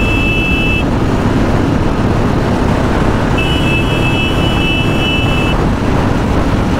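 Royal Enfield Classic 350's single-cylinder engine running flat out near its top speed of about 118 km/h, under heavy wind noise. A horn sounds a steady tone at the start, and again for about two seconds midway.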